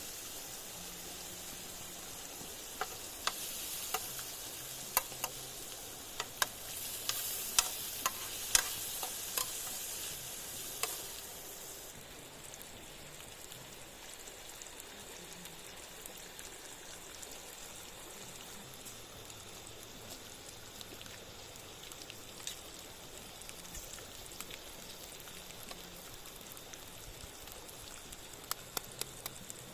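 Food frying in a pan: a steady sizzle with sharp spattering pops. About twelve seconds in, the sizzle drops to a softer, quieter hiss with only an occasional pop.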